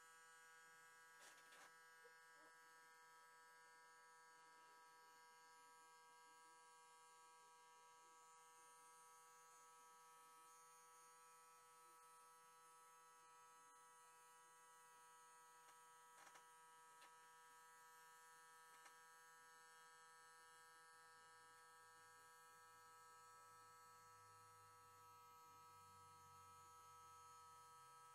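Faint, steady electric hum of a small motor turning a display turntable, made of several pitches held constant, with a few faint clicks now and then.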